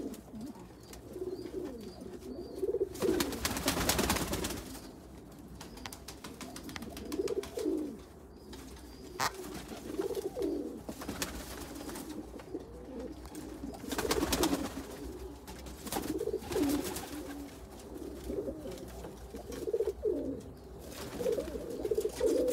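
Domestic pigeons cooing over and over in a breeding loft, several birds calling at once: the males' courtship cooing of the breeding season, started up by the sun's warmth. Two louder rustling flurries break in, about three and fourteen seconds in.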